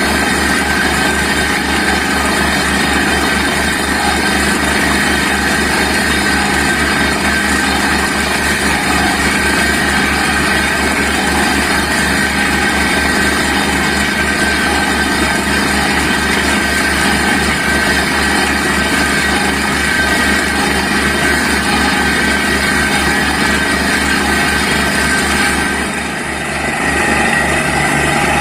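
Borewell drilling rig's engine and air compressor running steadily and loudly, with a brief drop in level near the end.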